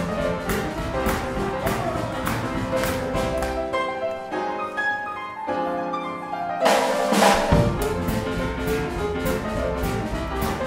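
Boogie-woogie played live on a grand piano with the band's drums keeping a steady beat. About four seconds in, the drums and the low end drop out and the piano carries on alone for about three seconds, then the full band comes back in with a loud accent just before seven seconds.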